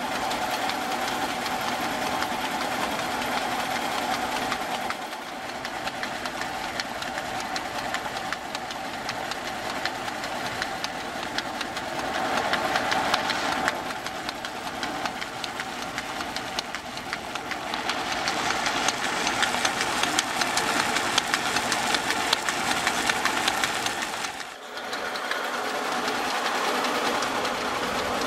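Antique flat-belt-driven centrifugal water pump running, belt and pulley turning with a fast, steady mechanical clatter. The sound dips briefly about 24 seconds in.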